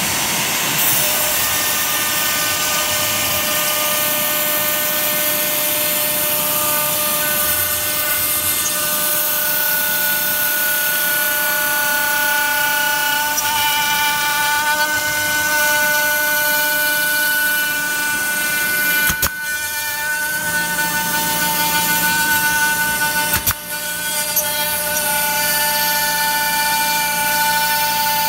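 Spindle of a home-built wood CNC router running with a steady high whine while the bit cuts letter outlines out of an MDF sheet, with cutting hiss underneath. Two brief clicks, each with a short dip in level, come in the last third.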